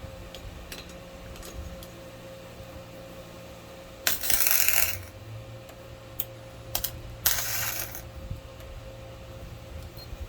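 Two short bursts of gasless flux-core MIG welding from a Hyundai HG200 welder: the arc crackles for about a second around four seconds in, then again for under a second a few seconds later, over a steady hum.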